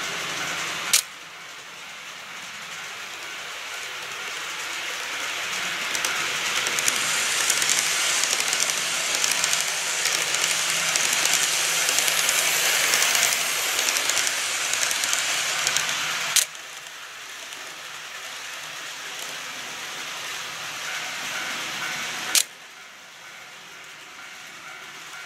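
Model train running through a layout level crossing: a rushing, hissing run of wheels on track with a faint motor hum, swelling to its loudest as the train passes. Sharp clicks at about 1, 16 and 22 seconds, after each of which the sound drops off suddenly.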